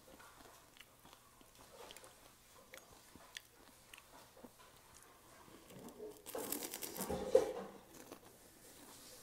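Close-miked eating: faint clicks and scrapes as a crisp snack piece is scooped through shrimp cocktail, then about six seconds in a loud crunching bite and chewing that lasts about a second and a half.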